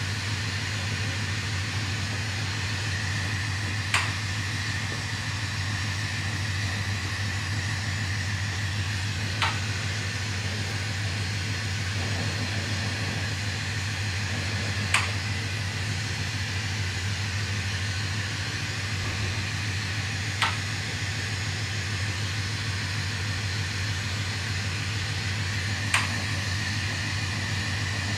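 Steady hiss of a bench-mounted glassworking torch flame over a low, even hum of shop equipment, broken by five sharp clicks evenly spaced about five and a half seconds apart.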